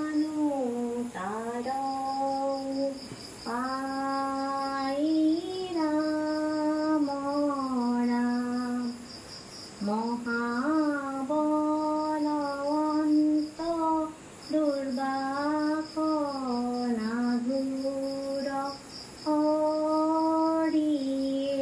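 A woman's voice singing a slow melody unaccompanied, in long held phrases with short breaks between them. A steady, high-pitched pulsing tone runs faintly behind the voice.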